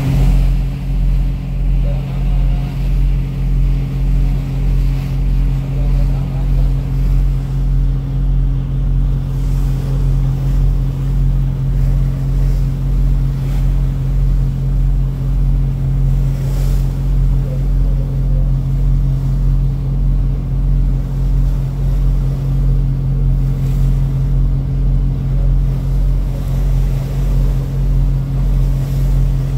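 A boat's engine running steadily with a deep, constant drone and a slight regular pulsing in loudness.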